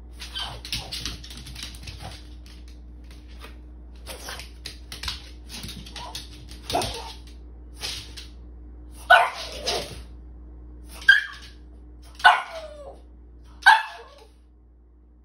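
French bulldog's claws clicking and scuffling on a tile floor as it prances in place, then five short barks in the second half.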